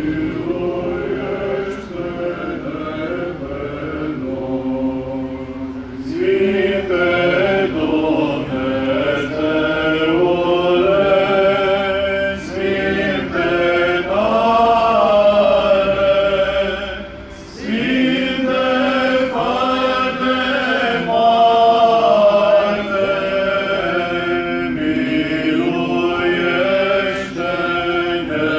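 Several voices singing Orthodox liturgical chant over a steady held low note. The sound grows fuller about six seconds in and breaks off briefly just after the midpoint before going on.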